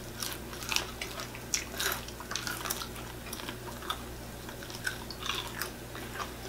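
People chewing and crunching crispy fried chicken close to the microphone: irregular short crackles and mouth sounds, with no steady rhythm.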